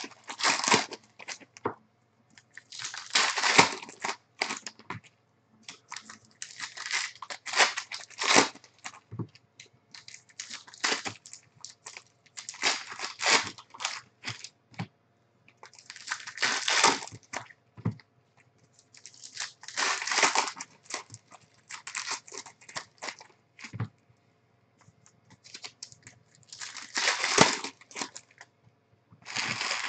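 Foil trading-card pack wrappers being torn open and crinkled by hand, in bursts of rustling every few seconds with short clicks in between.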